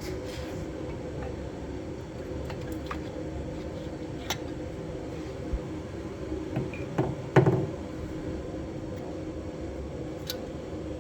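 Brake parts being handled at the wheel: a few light metal clicks and a louder knock and clatter about seven seconds in, over a steady background hum.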